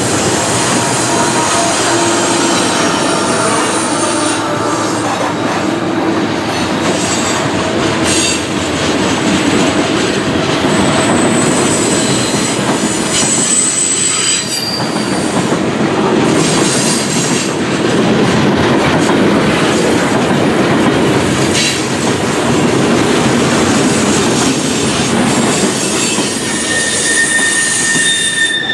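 A long freight train of loaded lumber flatcars, boxcars and tank cars rolling past close by: steady rumble of steel wheels on rail with clicks over the rail joints. High, thin wheel squeals come and go, most clearly around the middle and near the end.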